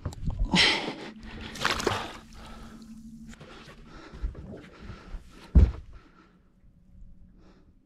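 Water splashing as a caught fish is let go over the side of a boat, with one sharp thump about five and a half seconds in.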